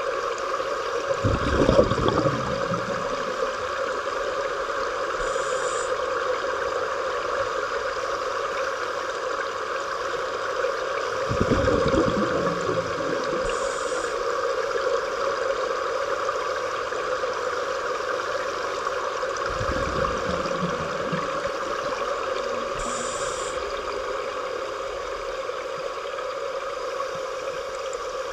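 Underwater sound inside a large aquarium tank: a steady hum and hiss of the moving water, broken three times, roughly every nine seconds, by the low rumbling gurgle of a scuba diver's exhaled bubbles from the regulator, with faint short hisses between the breaths.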